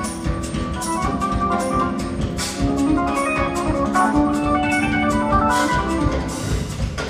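Live jazz-fusion band with orchestra playing: held, organ-like keyboard chords that move step by step over drums with repeated cymbal strokes.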